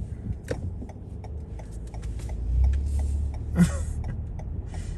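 Car engine and road rumble heard from inside the cabin, swelling a little past the middle, with a faint regular ticking about three times a second.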